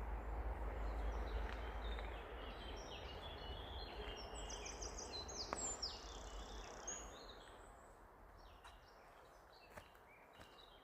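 Outdoor woodland ambience: a low rumbling, rustling noise that fades away after about seven seconds, with birds chirping in short, high, falling calls in the middle.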